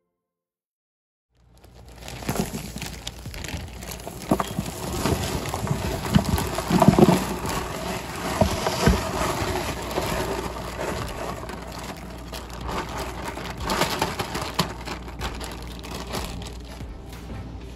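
Potting soil poured from a bag into a wooden planter box: a dense, gritty crackling patter of falling soil that starts after about a second and a half of silence, swelling loudest around the middle.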